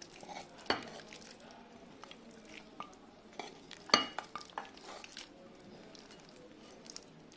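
Metal spoon scraping thick mutton curry out of a cooking pan into a glass bowl: soft scrapes and clinks, with two sharper knocks about a second in and about four seconds in.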